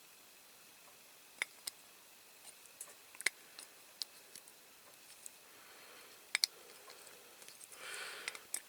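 A few small, sharp metal clicks and ticks, spaced irregularly, as the twisted tabs on a diecast toy lorry are worked straight with a tool, with a brief soft scraping near the end.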